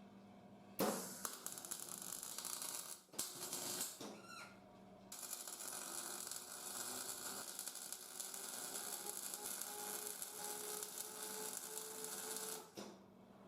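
Welding arc crackling and hissing in three runs: a couple of seconds near the start, a short burst, then a long steady bead of about eight seconds.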